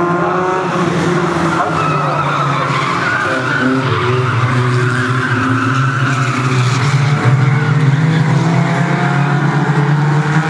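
Several small hatchback race cars running hard in a pack, their engines revving and easing off, with the notes rising and falling over each other.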